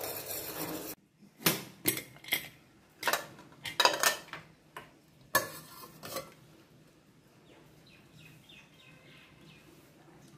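A ladle stirring in an aluminium pot of kadhi for about a second. Then metal cookware clinking and knocking about eight times over some five seconds, as a steel inner container of khichdi is handled in a pressure cooker.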